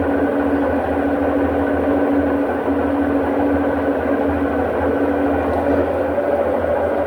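Samsung washing machine running: a steady motor hum with a held mid-pitched whine, its pitch stepping up a little near the end.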